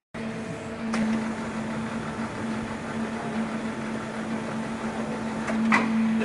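Mori Seiki MV-35/40 vertical machining centre running under power for a test run: a steady machine hum with a few light clicks, one about a second in and a couple near the end.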